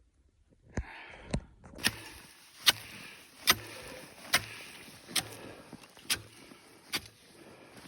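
Ice being chipped by hand, sharp strikes about once a second with gritty crunching between them. The strikes start about a second in.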